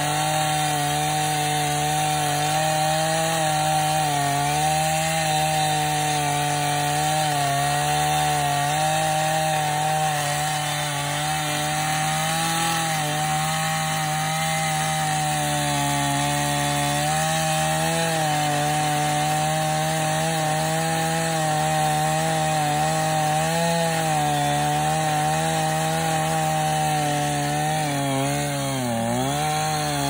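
Chainsaw running steadily while cutting into a limb of a felled tree. Its pitch wavers slightly and dips briefly near the end.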